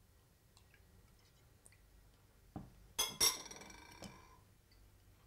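Metal spoon clinking twice against a ceramic bowl about three seconds in, just after a soft knock; the clinks ring briefly.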